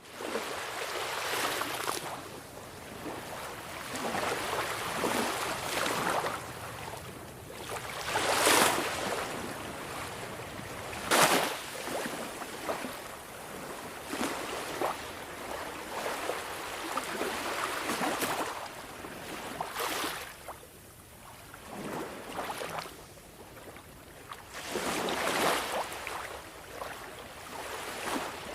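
Small sea waves washing onto the shore, coming in as irregular swells of noise every few seconds, with two sharper, louder splashes about a third of the way in.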